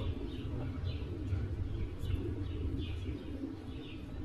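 Birds chirping over and over, a short falling chirp about two or three times a second, over a steady low rumble.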